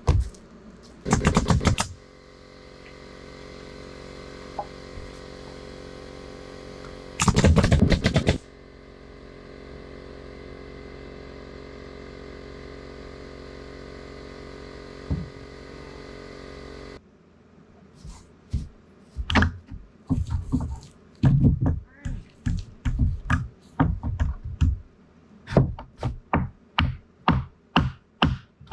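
A steady machine hum with two loud bursts of about a second each. After an abrupt change, a run of irregular sharp knocks and thuds.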